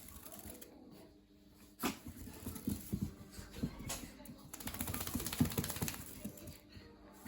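A small puppy scrabbling and rubbing on a towel: irregular light scratches, taps and soft rustling.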